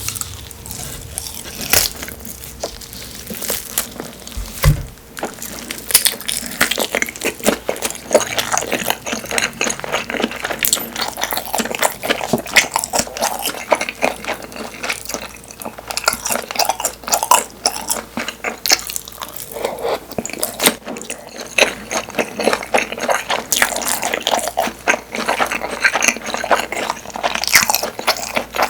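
Close-miked chewing of Korean blood sausage (sundae): a steady run of wet, sticky mouth clicks and smacks, with one brief low thump about five seconds in.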